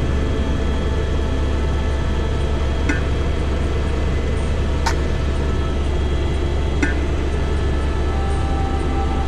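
Helicopter cabin noise: a steady deep rotor and engine drone with a constant turbine whine, heard inside the cabin. A faint click comes about every two seconds.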